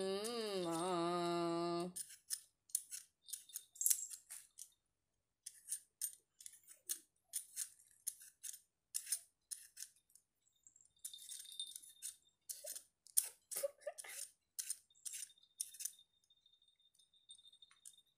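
A domestic cat gives one long meow whose pitch wavers, ending about two seconds in. Then comes a long run of faint, irregular crisp clicks and crackles.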